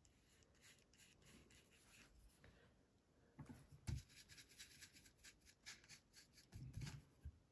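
Faint scratching and rubbing of a paintbrush working thick acrylic paint, first on watercolor paper, then in a blob of paint on a paper palette. A few soft low thumps come in the second half.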